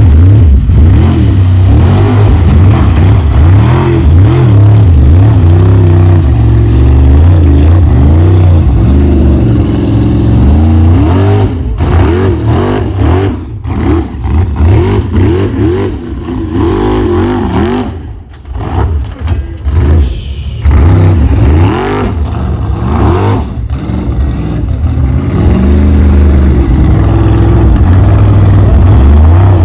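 Formula Offroad race truck's engine revving hard, its pitch climbing and falling. Through the middle the throttle keeps cutting off and coming back in short, sharp blips before it settles back to steady full throttle.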